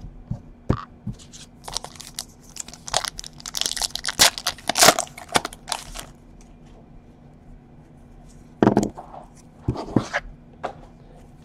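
Foil wrapper of a trading-card pack being torn open and crumpled by hand: a dense run of crinkling and tearing over the first half. After that, quieter handling of the cards with a few brief knocks near the end.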